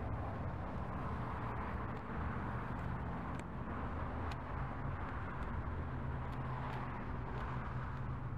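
A vehicle's engine running with a steady low hum, with a few faint clicks.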